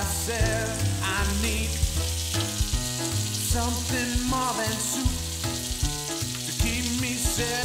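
Strips of raw bacon sizzling steadily in a preheated Lodge cast iron skillet over medium-low heat, at the start of frying. Background music with a bass line plays over the sizzle.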